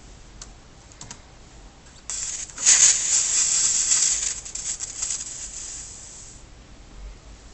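A computer running Ubuntu making a static-like hiss as it resumes from sleep: a noise that began only after the switch to Ubuntu. The hiss starts suddenly about two seconds in, jumps louder a moment later, then fades out over a few seconds. A few faint clicks come before it.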